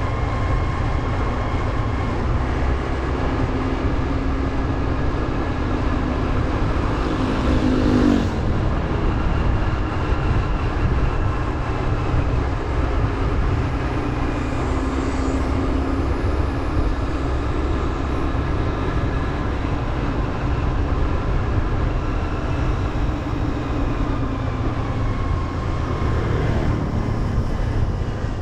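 Motorbike engine running as it rides along, with wind rushing over the microphone; the engine note rises and falls, climbing to a peak about eight seconds in and then dropping away.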